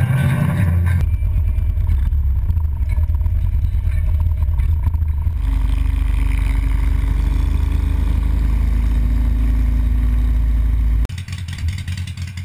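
Harley-Davidson motorcycle riding on the road: steady low engine rumble mixed with heavy wind noise on the bike-mounted microphone. From about five seconds in, a Road Glide Custom's V-twin runs steadily at highway speed. The sound cuts off suddenly near the end.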